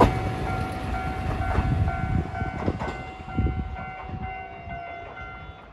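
Kotoden Kotohira Line train running past over a level crossing, its wheels rumbling and knocking on the rails, with the crossing's electronic bell ringing in a steady repeating tone. The train noise fades gradually as it moves away.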